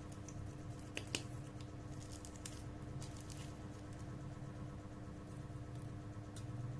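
Faint scattered clicks and light handling taps over a steady low hum, with two sharper clicks about a second in.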